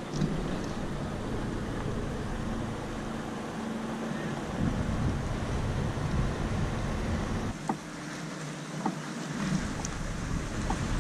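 Wind rumbling on the microphone and water lapping at a small boat's hull, with a few faint clicks as a freshly caught fish is unhooked. The low wind rumble drops out for a moment about eight seconds in.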